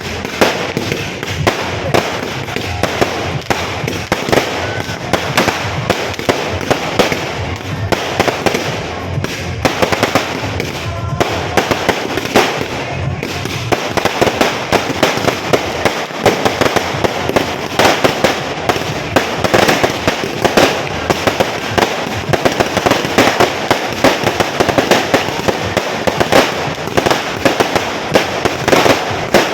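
Firecrackers going off in a long, dense run of sharp bangs, many a second, thickening from about halfway through.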